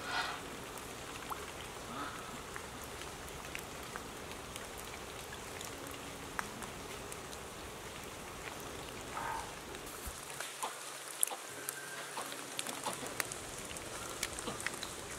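Light rain falling: a steady soft hiss with scattered drops ticking on nearby surfaces, the ticks coming more often near the end.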